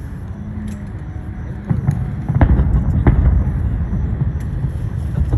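Fireworks shells bursting: a steady low rumble, then a run of booms starting about two seconds in, with sharp cracks at intervals of under a second.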